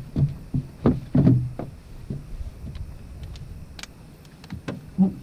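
Irregular knocks and bumps from people moving on a boat deck, with a few sharp clicks in between.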